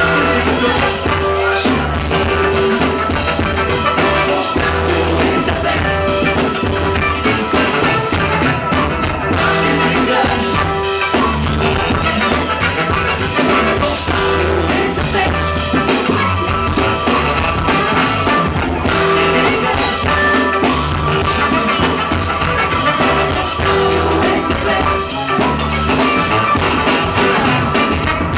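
Live funk band playing a loud, steady groove: a heavy bass line, drums, horns including baritone saxophone and trumpet, and singing.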